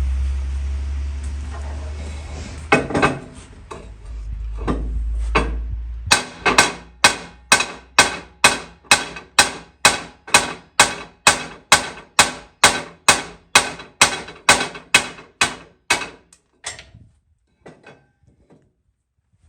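A low steady engine hum with a few scattered knocks, then, from about six seconds in, a long run of evenly spaced hammer blows, about two a second, that thin out and stop near the end.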